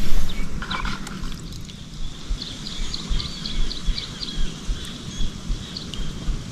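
A small bird calling in a quick run of short, high chirps, pausing and chirping again near the end, over a steady low rumble of wind on the microphone.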